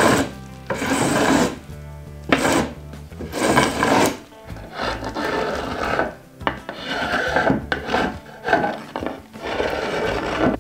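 A hand tool scraping along a glued-up hardwood cutting-board blank, about eight rasping strokes roughly one a second, taking off dried glue squeeze-out between the strips. Quiet background music plays underneath.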